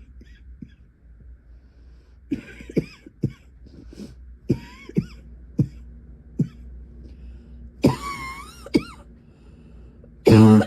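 A woman's coughing fit: after a quiet start, a quick run of short coughs, then a longer cough with a whistling tone that rises and falls, and one loud cough near the end, the loudest of all.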